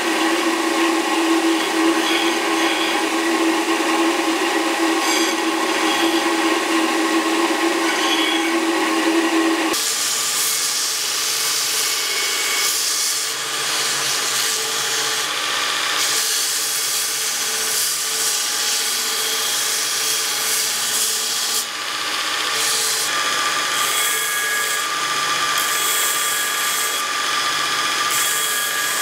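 An electric machine runs with a steady hum for about ten seconds. Then, abruptly, a belt grinder takes over, grinding a steel D-guard with a harsh hiss that swells and eases as the part is pressed on and lifted off the belt.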